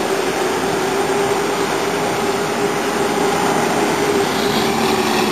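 An engine running steadily: a constant drone over a rushing noise, with no change in pitch.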